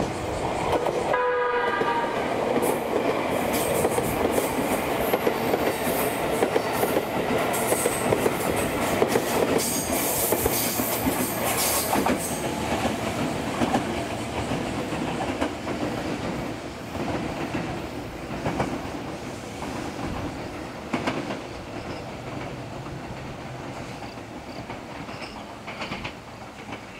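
JR Kyushu 787 series electric limited express train running through a station without stopping. It gives a short horn blast about a second in, followed by loud running noise with wheel clicks over the rail joints, which fades away over the last part.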